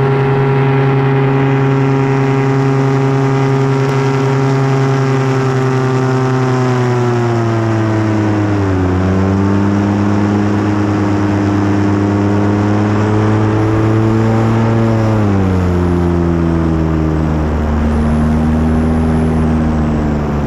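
Paramotor's backpack engine and propeller running steadily under power. Its pitch slides down about eight seconds in, climbs slowly back, then falls again around fifteen seconds.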